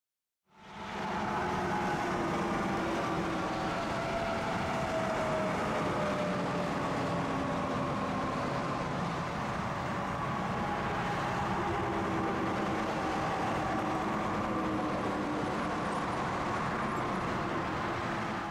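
Highway traffic going by close at hand: trucks and cars passing, a steady tyre-and-engine noise with slowly falling engine tones as they go by. It starts about half a second in.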